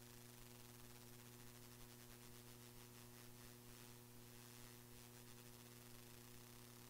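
Near silence: a faint steady electrical hum with a light hiss.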